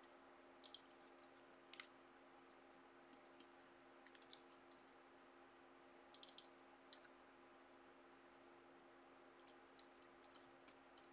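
Faint computer mouse clicks, scattered: a double click about a second in, a quick run of three or four clicks a little past the middle, and softer ticks near the end. Under them runs a low steady electrical hum.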